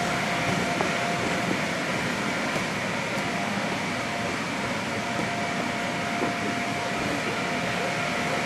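Bounce house's electric inflation blower running steadily: a constant rushing drone with a faint steady hum.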